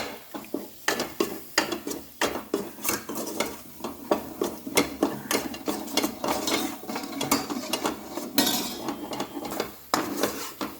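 A spatula stirring and scraping roasting gram flour (besan) in a pan, with many irregular clicks and scrapes against the pan, kept going so the flour does not stick to the bottom. About eight seconds in there is a short stretch of hiss.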